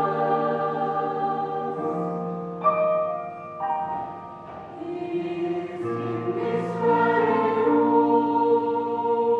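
Mixed choir of men's and women's voices singing held chords, falling to a soft passage about three seconds in and swelling back to full voice past the middle.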